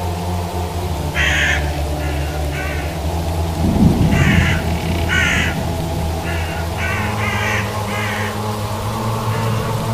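Crows cawing again and again, in ones and twos, over a low sustained drone of eerie music, with a low rumble of thunder about four seconds in.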